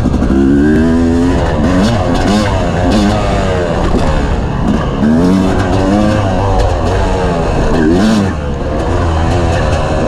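Dirt bike engine revving up and falling back over and over as the rider opens and closes the throttle while riding a supercross track, with a brief easing off a little after eight seconds.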